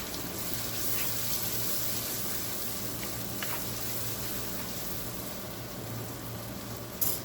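Hot sesame oil with a tempering of mustard seeds, cumin, curry leaves, onion and spice powders sizzling in a kadai, the flame just switched off. A steady low hum runs underneath, and a sharp click comes near the end.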